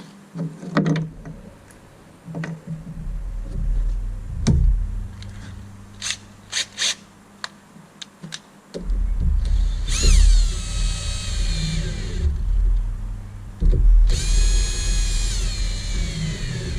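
Power drill run in two bursts of about two seconds each, its whine dropping in pitch as it bites and then holding steady, preceded by a few knocks and clicks of handling.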